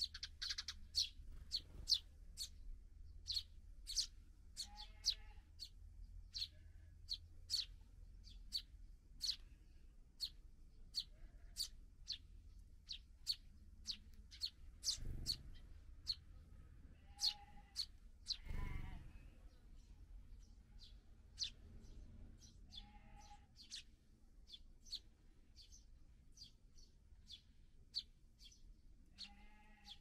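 Eurasian tree sparrow fledglings begging for food: rapid, repeated high chirps, two or three a second, broken now and then by a lower, buzzier call.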